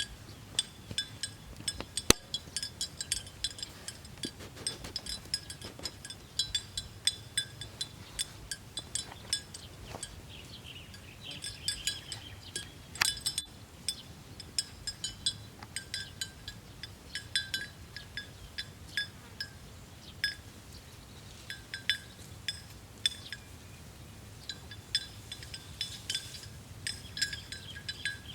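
Cow bells clanking irregularly as the cattle move, many short ringing clinks, some in quick clusters of several.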